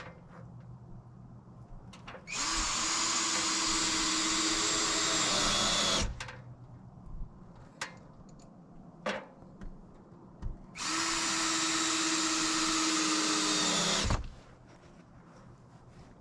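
Power drill running in two bursts of about three and a half seconds each, its whine dropping as it stops, with a few light knocks in between.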